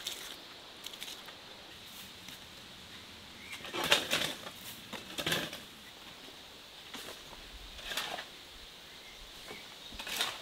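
Hand trowel scraping and smoothing wet clay plaster over a mud oven's dome: a series of short swishing strokes, irregularly spaced, the loudest about four and five seconds in.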